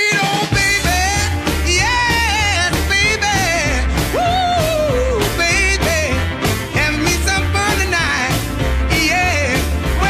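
Music: a song with a singing voice over a steady bass beat.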